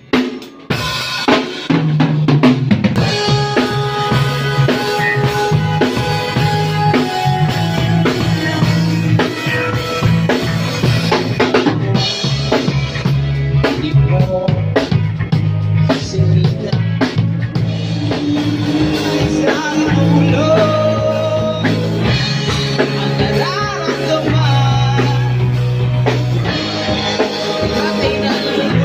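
A band playing live: a drum kit opens with a few hits. About two seconds in, the full band comes in, with an electric bass holding low notes and other instruments playing higher lines over a steady drum beat.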